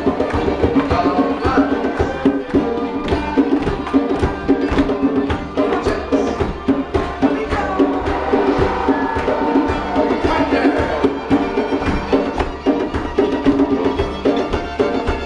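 Folk dance music for a contra dance, with a steady beat and many sharp percussive knocks.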